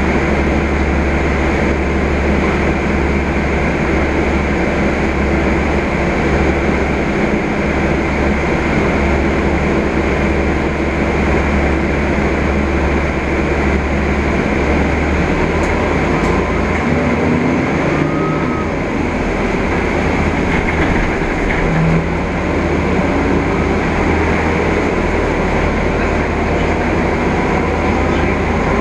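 Interior noise of a Mercedes-Benz Conecto G articulated city bus on the move: a steady low engine drone with road and cabin rattle noise. The low engine note changes about halfway through.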